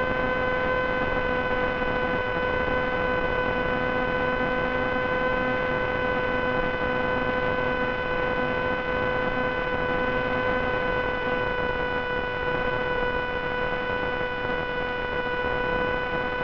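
Steady electrical buzz: one constant droning tone with a ladder of overtones over an even hiss, unchanging throughout. This is the kind of noise carried on the audio channel of an analog FPV video link.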